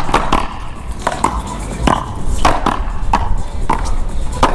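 A one-wall paddleball rally: a big blue paddleball struck by paddles and rebounding off the wall and court in a quick run of sharp cracks, often in close pairs.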